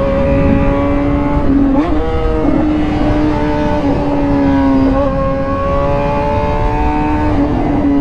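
2008 Honda CBR600RR's inline-four engine running hard at high, fairly steady revs under way on a racetrack, its pitch wobbling and stepping briefly about two seconds in and again around five seconds in.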